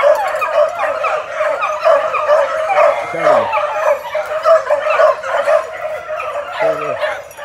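A pack of young rabbit-hunting puppies yipping and baying in a steady chorus of rapid, overlapping high yelps as they run a rabbit on its trail.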